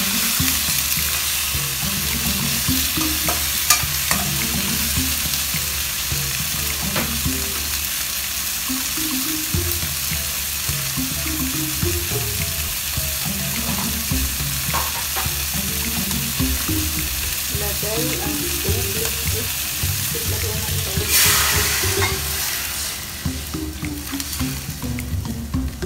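Fish pieces and sliced tomato sizzling in hot oil in a stainless steel wok, with occasional clicks and scrapes of a metal spatula against the pan. Near the end, water poured from a bowl into the hot pan sets off a sudden loud surge of hissing, and then the sizzle dies down.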